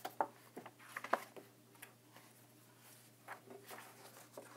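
Pages of a paperback picture book being turned and pressed flat by hand: a few soft, faint paper rustles and flicks about a second in, and again near the end.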